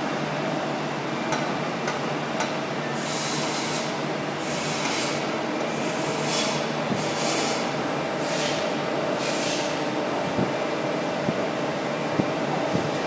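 A BTA deep hole drilling machine running, a steady mechanical hum with a faint whine. From about three to ten seconds in there are six short hisses, each about half a second long.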